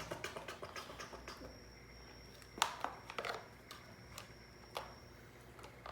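Small plastic toys being handled and set down, giving light scattered clicks and taps, the sharpest about halfway through, over a faint steady high-pitched tone.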